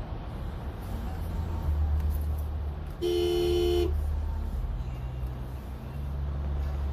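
Steady low rumble of a vehicle driving, with a single car horn honk of just under a second about three seconds in.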